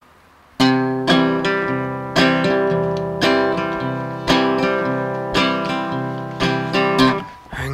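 Acoustic guitar strumming chords in a steady rhythm, about two strums a second, coming in about half a second in as the instrumental opening of a rough first-take home recording of a song.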